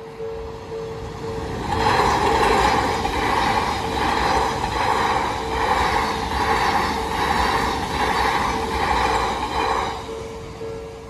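Japanese level-crossing warning bell ringing its repeated single-tone ding. From about two seconds in until near the end, an Odakyu Romancecar 60000 series MSE electric express train runs through the crossing. The train is much louder than the bell: a running rumble with a regular pulse that fades as the train clears.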